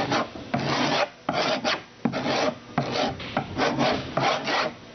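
Something hard being dragged across the plastic surface of a Norix Forte chair to scratch it up. It makes a series of short rasping scrapes, about two a second.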